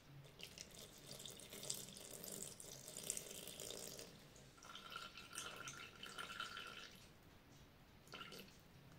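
Water poured in a thin stream from a plastic measuring jug into a Thermomix mixing bowl, onto flour and oil. It comes in two faint spells, the second with a ringing pitch, and a brief last trickle near the end.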